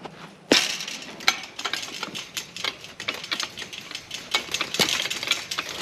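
A knock about half a second in, then a run of irregular metallic clicks and rattles from the chain link gate's parts being handled.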